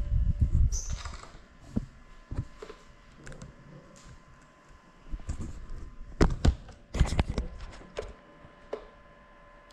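Scattered sharp knocks and clicks from a small FPV drone being bumped and handled, with a low rumble in the first second and a cluster of knocks a little past the middle.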